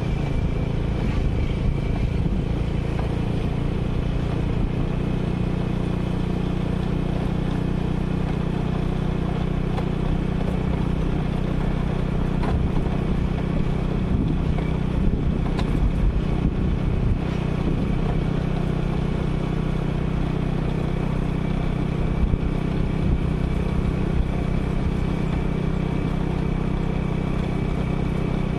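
Motorcycle engine running at a steady, even speed while riding along, with no change in pitch or loudness.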